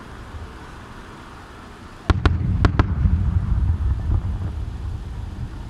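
Distant aerial fireworks shells bursting: four sharp bangs in two quick pairs about two seconds in, followed by a low rolling rumble of echoing booms.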